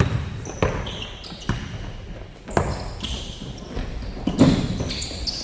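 Basketball bouncing on a court, about six irregular thuds with the loudest about four seconds in, mixed with short high squeaks of sneakers on the floor.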